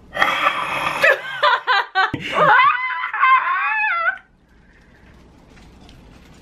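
A woman laughing, then giving high, sliding squeals for about four seconds; after that it goes fairly quiet.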